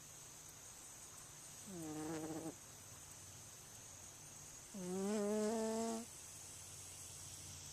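Sleeping cat snoring: two snores about three seconds apart, the second longer and louder.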